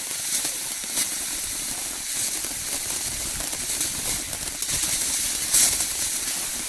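Panda Killer Bee firework fountain burning, a steady hiss as it sprays sparks, broken by a few sharp pops, the loudest about five and a half seconds in.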